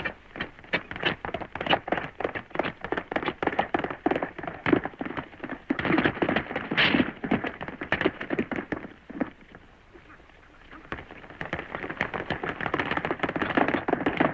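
Galloping horse's hoofbeats, a rapid, uneven patter of hoof strikes on dry ground. They die away for a moment about two-thirds of the way through, then come back louder near the end as the horse draws close.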